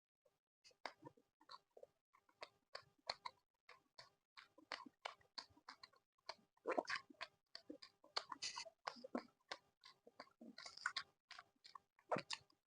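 Close-miked chewing of laddu peethi, fried lentil fritters with chutney: a fast, irregular string of short wet mouth clicks and crunches, with a few louder bursts of chewing.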